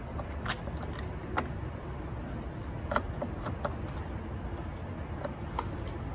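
Scattered light clicks and knocks from plastic engine-bay parts of the air intake being handled and unclipped by hand, heard over a steady low background rumble.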